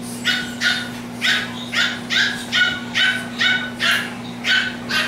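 Boston terrier puppy yapping over and over, short high-pitched yips at about two a second.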